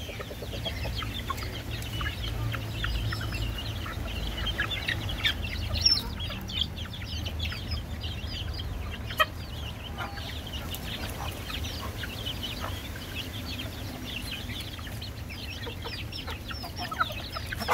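A flock of hens and young chicks calling: a continual stream of short, high peeps mixed with clucking.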